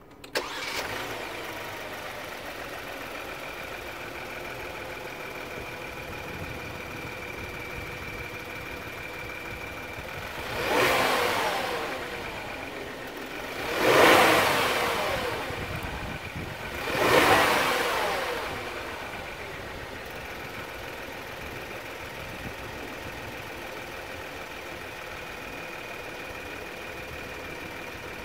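2019 Kia K900's engine starting with a short flare about half a second in, then idling steadily. Around the middle it is revved three times, each rev rising and falling away over a second or two, before it settles back to a steady idle.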